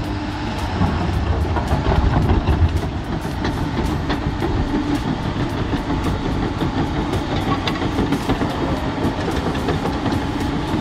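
Tracked dumper's Cat C6.6 ACERT diesel engine running under load as the machine crawls through shallow water, with a steady low drone and a rapid clatter of its steel crawler tracks. It is a little louder about one to three seconds in.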